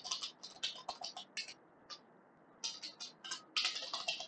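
Computer keyboard typing: quick runs of keystroke clicks, with a pause of about a second in the middle before a second run.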